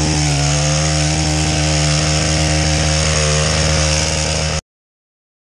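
Small gas engine of a long-shaft pole cutter running steadily at high speed while it cuts pampas grass. The engine sound cuts off suddenly a little past four seconds in.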